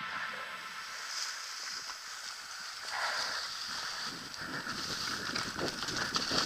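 Mountain bike riding fast down a trail covered in dry leaves: a steady hiss of tyres over leaves and dirt, with rattles and knocks from the bike over bumps that grow more frequent in the second half, heard through a helmet-mounted action camera.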